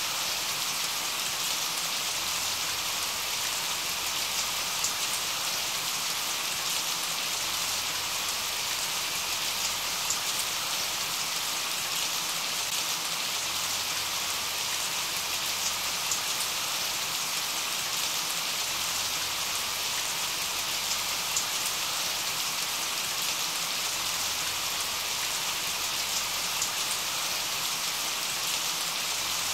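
Steady rain falling: an even hiss with scattered small drop ticks, unchanging throughout.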